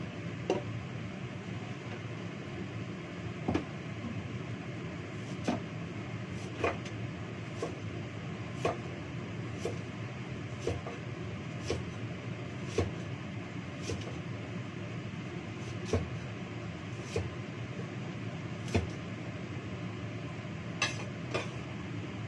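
A kitchen knife chopping carrot on a wooden cutting board: single sharp knocks, unevenly spaced about a second or two apart, over a steady whirring hum like a fan.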